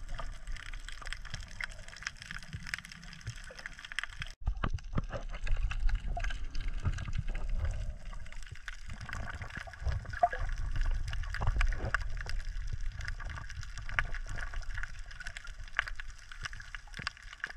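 Underwater sound from a camera held by a snorkeler: muffled water sloshing and gurgling over a low rumble, with many scattered crackling clicks. The sound drops out briefly about four seconds in.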